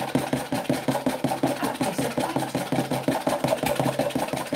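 A fork or hand whisk beating a foamy slime mixture in a plastic measuring jug: a fast, even clatter of many strokes a second.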